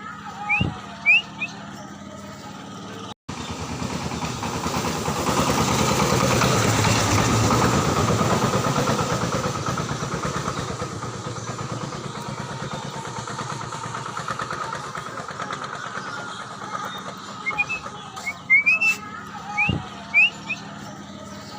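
A motor vehicle passes, its engine sound swelling over several seconds and fading away. Short rising bird chirps come near the start and again several times near the end.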